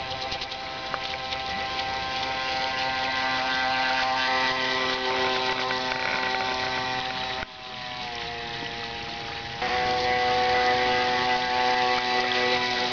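Ansmann Lugano RC model runabout's Kyosho AP-29-type electric motor and drive shaft running with a steady whine. About seven seconds in it suddenly drops in loudness and pitch, then jumps back up two seconds later. The owner reports a badly vibrating drive shaft on this boat.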